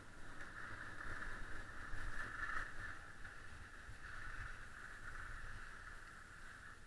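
Skis sliding over packed snow: a steady hiss with a low wind rumble on the microphone, growing quieter near the end.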